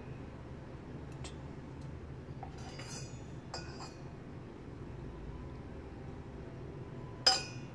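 Kitchen utensils clinking against a stainless steel pot: a few light clinks, then one sharp, much louder clink near the end, over a low steady hum.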